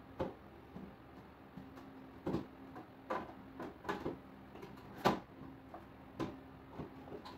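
Food being put back onto the shelves of an open refrigerator: a string of irregular light knocks and clacks of fruit and containers set down on the shelves, the loudest about five seconds in, over a faint steady hum.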